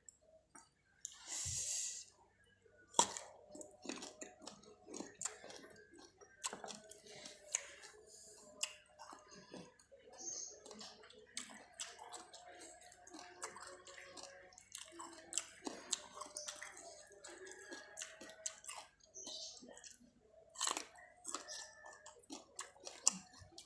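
Close-up chewing of spicy chicken feet: irregular wet smacks, sucks and small crunchy clicks as the skin is nibbled off the bones, with a short breathy hiss about a second and a half in.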